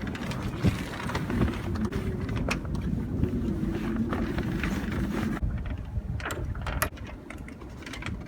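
A sailboat's inboard engine running steadily with a low hum, with occasional knocks; the sound quietens abruptly about five seconds in.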